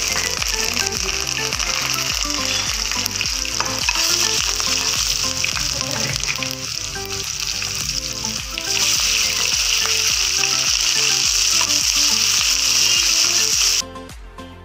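Garlic and green chilies sizzling in hot oil in a steel kadai, the sizzle growing louder about nine seconds in as sliced red onion goes into the pan and is stirred with a ladle. The sizzle drops off suddenly near the end, with a steady beat underneath throughout.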